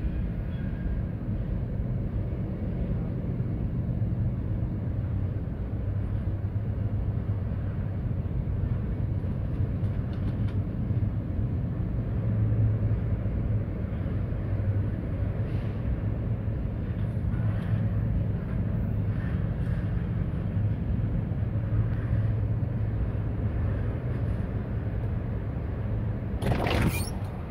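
Freight train rolling past steadily, a continuous low rumble of wheels on rail with a low hum. Near the end there is a brief, loud burst of noise.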